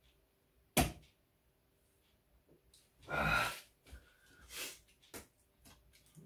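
A sharp knock about a second in, then a short burst of noise around three seconds, followed by the scratchy, intermittent strokes of a box cutter's blade slitting the packing tape on a cardboard box.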